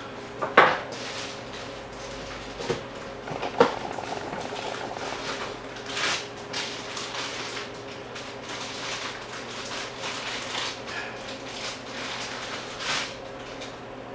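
Hand work on a car's steering parts: two sharp metal clanks of tools or parts being handled, then a run of short scraping strokes, over a steady faint hum.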